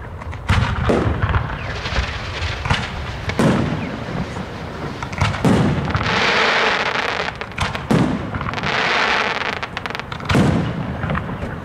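Aerial fireworks: a rapid run of sharp bangs from shells launching and bursting, with two longer noisy stretches about six and nine seconds in.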